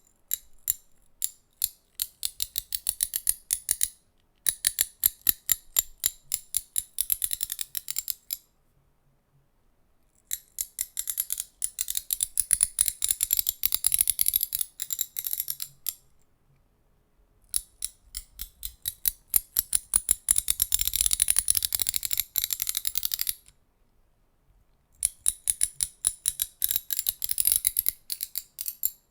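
Hand ratchet clicking in runs of rapid, crisp clicks, each run a few seconds long with short pauses between, five runs in all.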